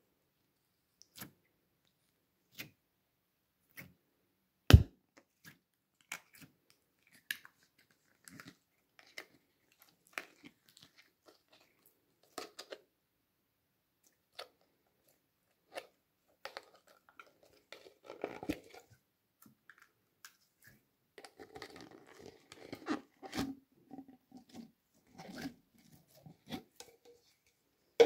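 Hands handling plastic jars of slime: scattered sharp clicks and knocks, the loudest one about five seconds in, then from about halfway the denser crackling and squelching of slime being worked out of a jar and squeezed in the hand.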